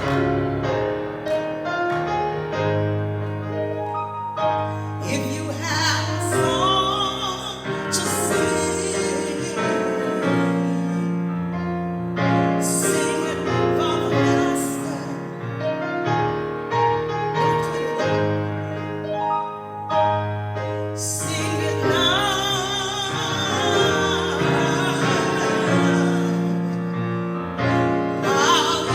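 A live gospel song: one or more voices singing long held notes over piano or keyboard accompaniment.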